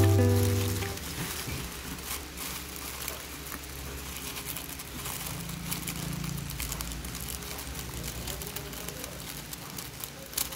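Tissue paper crinkling and rustling as hands unfold it inside a cardboard box, with many small crackles and a couple of sharper clicks near the end.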